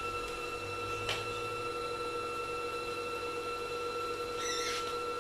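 Pfaff Smarter 260c sewing machine's motor running steadily to wind a bobbin, a steady whine. There is a light click about a second in.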